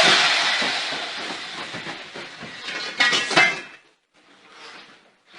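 A tool set off by its trigger: a sudden loud rushing hiss full of clattering and rattling that fades away over about three seconds, with a second short burst about three seconds in.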